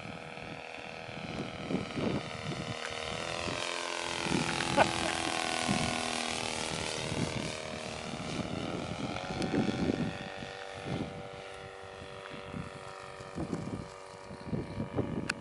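Large radio-controlled RF-4 model motorglider with a Saito FG 57 four-stroke petrol engine flying past: the engine-and-propeller drone rises in pitch as it approaches, is loudest about five seconds in, then drops in pitch as it moves away. Wind gusts on the microphone.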